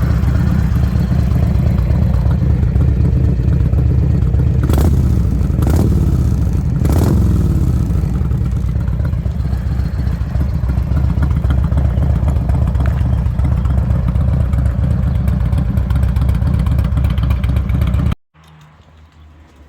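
1995 Harley-Davidson Road King's Evolution V-twin running through its stock exhaust, with two quick throttle blips about five and seven seconds in. The sound cuts off abruptly near the end.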